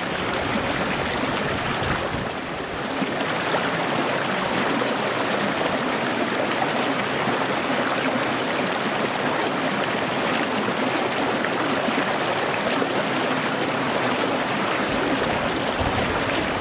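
Small, clear river running over rocks: a steady, even rush of flowing water.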